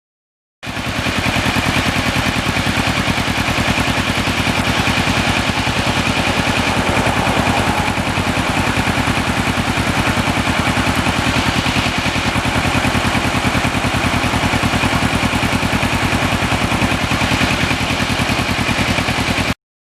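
Kawasaki Ninja 650R parallel-twin engine running at a steady speed, a rapid, even pulse of exhaust beats with no rise or fall in pitch.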